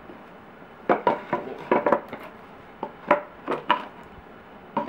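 Painted wooden boards being handled and shuffled on a worktable, making a scattered run of light knocks and clatters, about ten in a few seconds.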